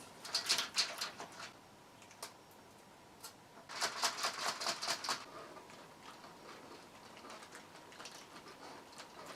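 Mechanical keyboard being scrubbed and swished around in a tub of water and isopropyl alcohol to wash sticky soda residue out of its switches: two bursts of quick clicking, splashing strokes, at the start and again about four seconds in, then faint dripping patter.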